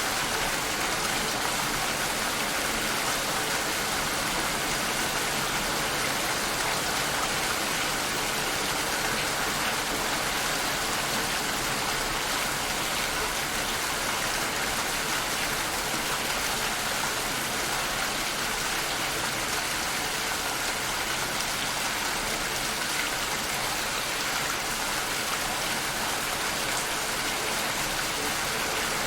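Steady rainfall, an even hiss of many drops with no breaks or changes.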